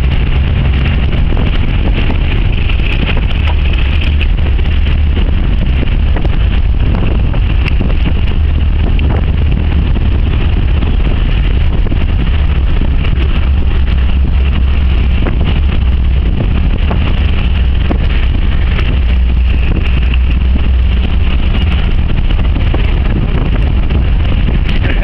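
A towing vehicle's engine and tyres running steadily at speed on a dirt road, heard from on board, with wind buffeting the microphone.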